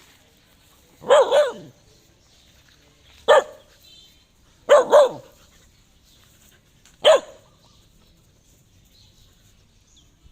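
A dog barking at a snake it has found. The barks come in short groups of one or two, a second or two apart, then fall quiet over the last few seconds.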